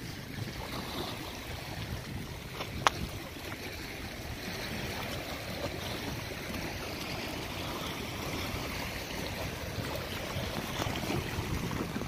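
Small waves lapping and washing against the rocks of a stone breakwater, with wind rumbling on the microphone. A single sharp click about three seconds in.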